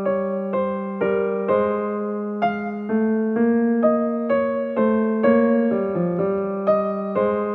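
Background music: a piano-style keyboard melody, notes struck about twice a second and each left to die away.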